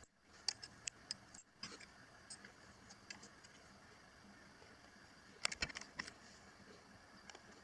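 Scattered faint clicks and light metallic taps, with a quick cluster of them about five and a half seconds in: metal parts and tools being handled while an old machine vise is taken apart.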